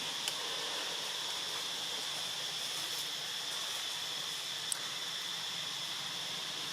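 Steady outdoor background hiss, strongest in a high band, with two faint short clicks, one right at the start and one just under five seconds in.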